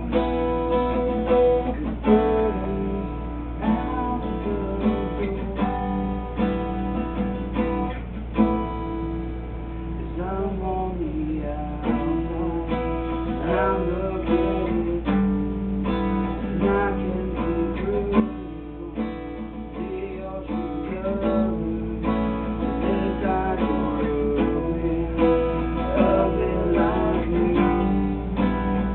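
Acoustic guitar strummed in a steady rhythm, with a voice singing along over the chords. The playing eases off briefly about two-thirds of the way through, then picks up again.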